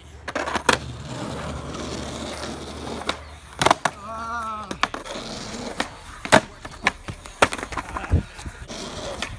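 Skateboard wheels rolling on an asphalt street, then a series of sharp clacks as the board is popped, lands and clatters on the pavement in a bailed trick, with a heavy thud near the end. A short vocal cry sounds about four seconds in.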